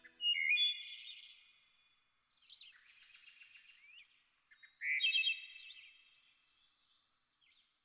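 Songbird singing: two loud, fast phrases of whistled notes, one at the start and one about five seconds in, with softer chirps between.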